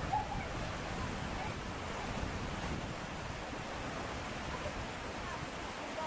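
Waterfall rushing steadily, a constant even roar of falling water. A few faint high chirps sound over it shortly after the start and again near the end.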